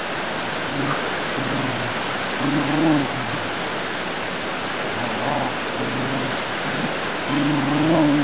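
Bernese mountain dog puppies growling in rough play: about five short, low growls, the longest and loudest near the end, over a steady hiss.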